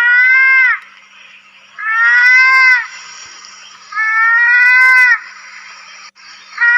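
Mouse-deer (kancil) calling: a drawn-out pitched cry about a second long that rises slightly and drops at its end. It is repeated about every two seconds, four times, over a steady high hiss in the background.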